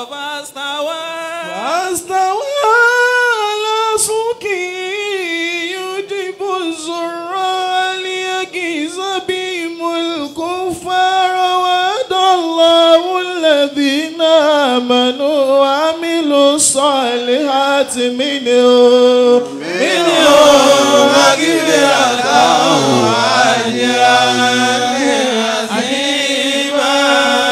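Men's voices chanting a melodic Islamic recitation. For the first twenty seconds one voice carries a wavering, ornamented line; then several voices join in together.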